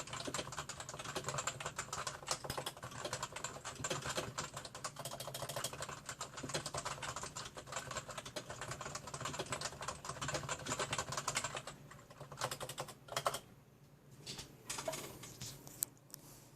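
Typing on a Topre Type Heaven keyboard with unlubricated stock Topre electrostatic capacitive switches: fast, continuous keystrokes that thin out after about twelve seconds, pause, and end with a few scattered strokes.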